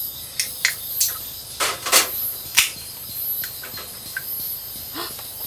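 An aluminium drink can being opened: a few clicks of the pull tab, then a short fizzing hiss about two seconds in, followed by another sharp click. Crickets chirp steadily behind it.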